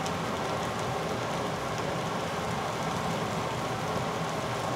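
Banana slices sizzling in a hot frying pan while the poured-on liquor burns off in flames: a steady hiss with a few faint crackles.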